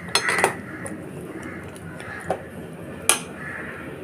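Slotted metal spoon stirring vegetables in water inside a pressure cooker pot, clinking against the pot: a few quick clinks near the start, then single knocks about two and three seconds in.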